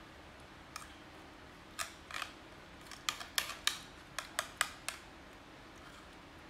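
Metal spoon clicking and scraping against a ceramic plate as food is scooped up: a few sharp clinks, then a quick run of about ten in the second half.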